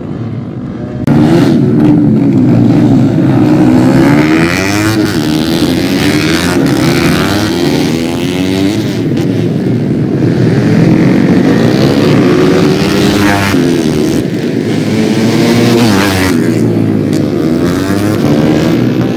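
Several underbone racing motorcycles revving hard through the corners, engine pitch rising and falling with gear changes and with each bike going by. The sound jumps louder about a second in.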